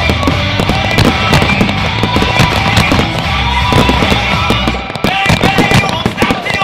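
Loud heavy rock music with fireworks bursting and crackling over it in rapid succession. About five seconds in the music's bass drops away, leaving a quick run of sharp bangs.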